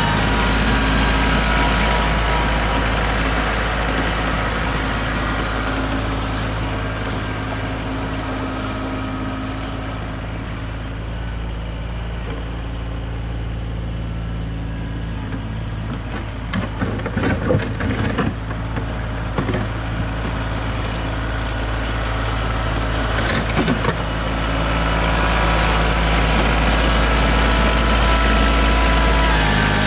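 Kioti CK4010 compact tractor's diesel engine running steadily, fading as the tractor moves away and growing louder again as it comes back. A few short knocks and clatters come in the middle, while it is farther off.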